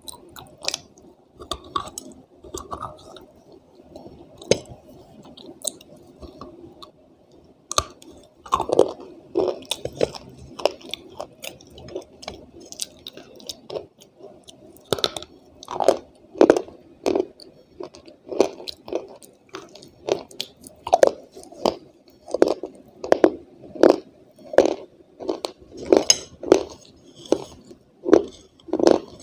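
A person biting and chewing a hard, crumbly white chalk-like piece of clay, each chew a crunch. Scattered, quieter crunches at first, then from about eight seconds in a steady chewing rhythm of roughly three crunches every two seconds.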